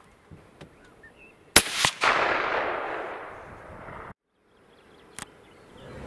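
A single hunting rifle shot about a second and a half in, a second sharp crack just after it, then the echo rolling away and fading over about two seconds before the sound cuts off abruptly.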